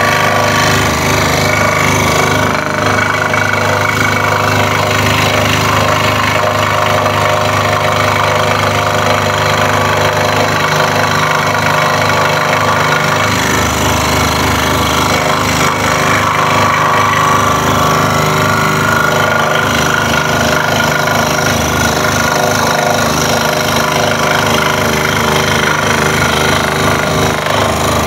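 Scroll saw running with its blade stroking up and down as it cuts tight curves in a thin wooden sheet: a steady mechanical drone with a fast, even chatter. The tone of the chatter changes about 13 seconds in.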